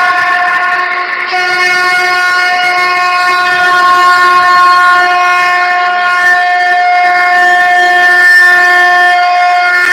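Conch shell (shankh) blown in one long, steady, loud note, a bright horn-like tone with many overtones. It is briefly renewed about a second in.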